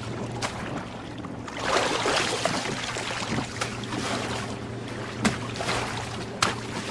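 Water splashing and sloshing around a small wooden rowboat, swelling about two seconds in. A few sharp knocks come through, one early and two near the end, over a steady low hum.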